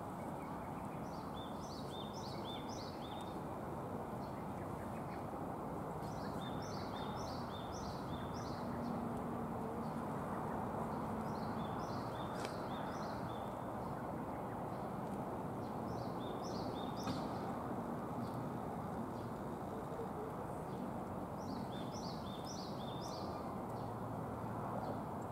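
A songbird sings the same short phrase of quick, high notes five times, about every five seconds, over a steady outdoor background hiss.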